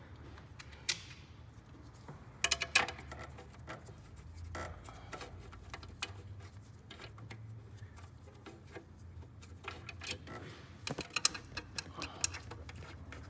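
Hand tools working on a starter mounting bolt: scattered sharp metal clicks and clinks, coming in quick clusters about two and a half seconds in and again near the end, like a ratchet being worked in short strokes.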